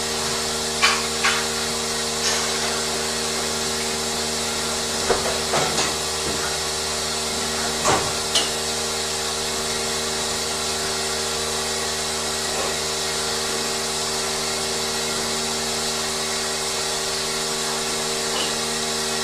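Steady hum and hiss of dairy barn machinery, with a few sharp knocks and clanks in the first half.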